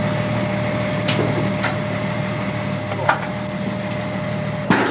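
Sharp metallic clicks and knocks inside an army armored vehicle, the loudest near the end, over a steady hum.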